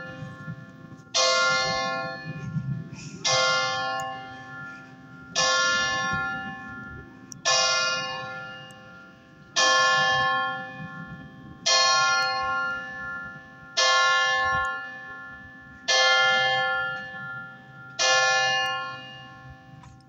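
A single church bell struck about every two seconds, nine strokes in all. Each stroke is the same pitch and rings out and fades before the next.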